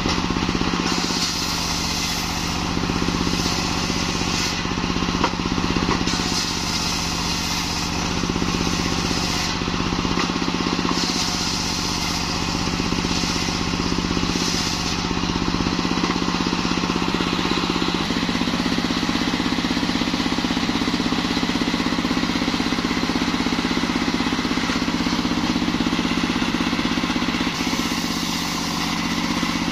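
Engine-driven circular saw bench running steadily while its blade rips a log of kembang kantil (white champak) wood: a constant engine drone under the hiss of the blade in the wood, which swells and eases every few seconds as the cut goes on.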